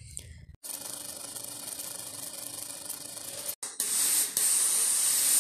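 Steam iron hissing as it presses a seam. A steady hiss starts about half a second in, stops briefly, then comes back louder.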